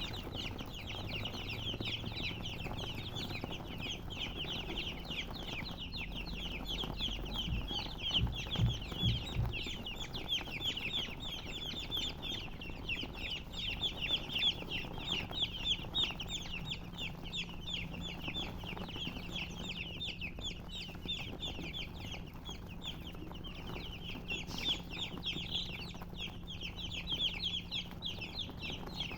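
A brood of baby chicks peeping continuously, many short high chirps overlapping in a dense stream, with a few low thumps about eight seconds in.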